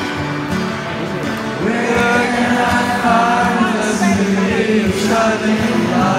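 Acoustic guitar strummed live with a man singing into a microphone, heard through an arena PA from the crowd. The singing comes in about two seconds in, over the steady guitar.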